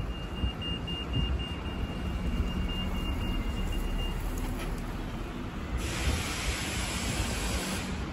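City street traffic: a steady low rumble of vehicles, with a thin high tone that breaks on and off in the first half and a hiss lasting about two seconds near the end.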